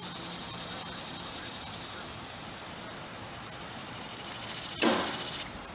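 A baseball bat strikes a tossed ball about five seconds in: one sharp crack with a short noisy tail, over steady outdoor background noise.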